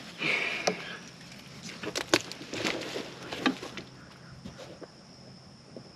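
Handling noises: a handful of sharp clicks and knocks with a brief rustle, mostly in the first four seconds. Under them runs a steady high-pitched trill of crickets.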